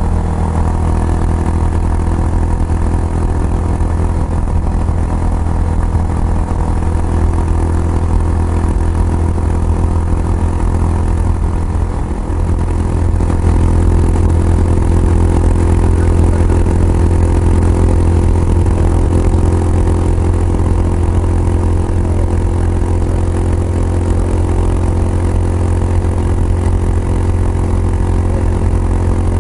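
Kawasaki Estrella 250's single-cylinder engine running through a Yamato aftermarket muffler, a steady low exhaust note. About twelve seconds in the sound dips briefly, then comes back steady and a little louder.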